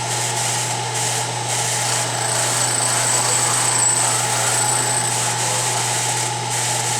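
Milling machine running with an end mill spinning in its chuck: a steady motor hum with a constant mid-pitched tone, and a high whine that comes in about two seconds in and fades out a few seconds later.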